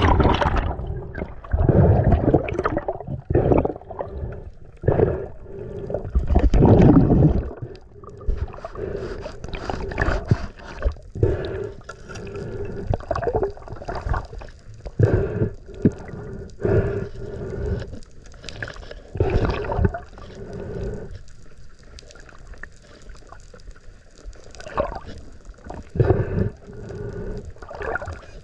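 Underwater camera audio: muffled water sloshing and gurgling in irregular surges, loudest in the first few seconds, with a faint low hum.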